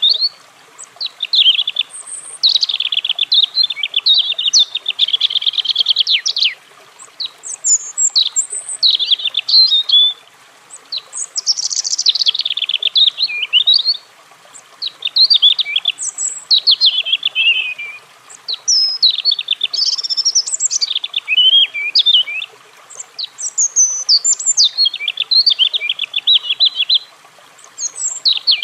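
European robin singing: a run of short, varied phrases of quick, high warbling and trilling notes, each a few seconds long, separated by brief pauses.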